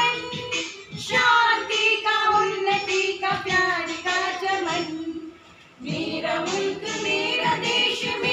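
Women singing together into a microphone; the singing breaks off briefly about five seconds in, then picks up again.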